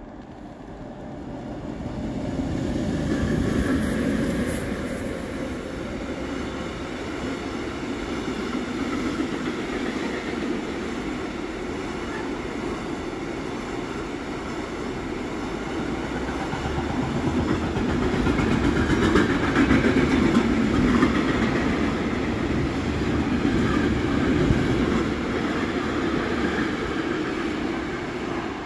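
A train running on the tracks past the listener. It builds up over the first few seconds, stays steady, is loudest around twenty seconds in and eases off slightly near the end.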